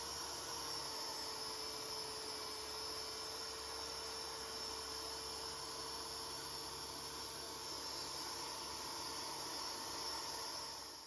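Hand-held rotary polisher with a foam pad buffing the clear coat on a painted motorcycle fuel tank: a steady whine over a hiss.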